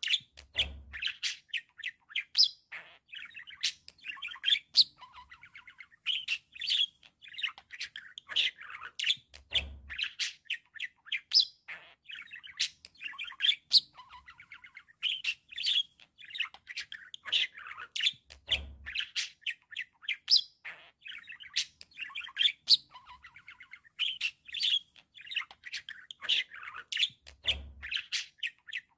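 Pet budgerigars warbling and chattering without a break: a busy, quick run of high chirps, clicks and squeaky notes.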